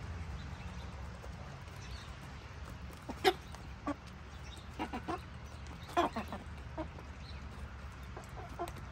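Asil chickens clucking: a handful of short clucks starting about three seconds in, the first the loudest, over a steady low hum.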